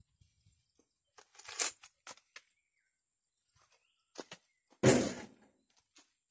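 Footsteps and scattered rustles on dry fallen leaves, with one louder crunch about five seconds in.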